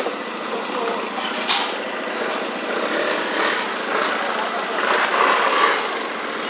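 Road and vehicle noise, a steady rush, broken by two short sharp hisses: one right at the start and one about a second and a half in.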